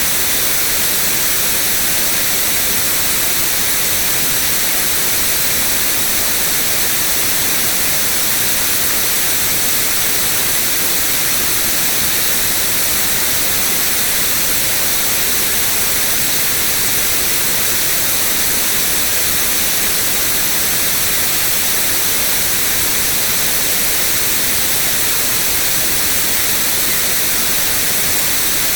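Continuous white noise: a steady, unchanging hiss, strongest in the treble.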